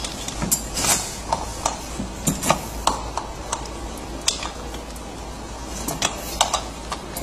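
Hands screwing a plastic nut onto the metal axle of a kids' ride-on truck's front wheel: scattered clicks and small rattles of plastic and metal parts.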